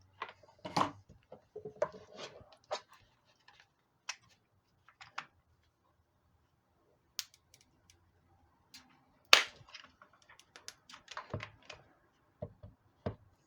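Scattered sharp clicks and knocks from handling the plastic feeder and its neodymium hard-drive magnets, with the loudest crack about nine seconds in.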